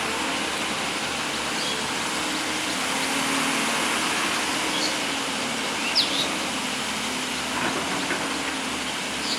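Excavator's diesel engine running steadily, with a few brief high clicks about 2, 5 and 6 seconds in.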